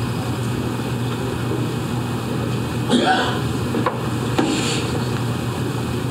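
Room tone with a steady low hum, broken by a few brief noises about three, four and four and a half seconds in.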